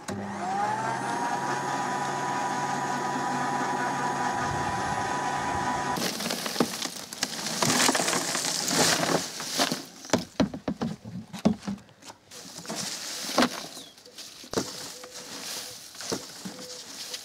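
Garden shredder motor spinning up and then running steadily with a high whine. About six seconds in it gives way to shredded cane chips being tipped out of a plastic collection box into a wheelbarrow: dry crackling and rustling with knocks of the plastic box, then scattered crackles as the chips are handled.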